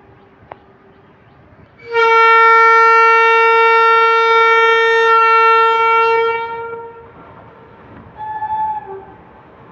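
Indian Railways electric locomotive horn on an approaching express train: one long steady blast of about four and a half seconds, then a second, quieter and shorter blast about a second and a half later.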